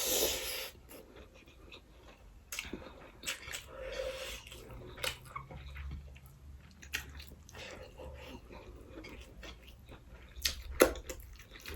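Close-miked chewing of a mouthful of fried rice, with many small sharp smacks and clicks scattered through it.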